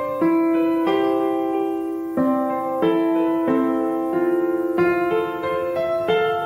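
Background piano music: slow notes and chords struck about once a second and left to ring.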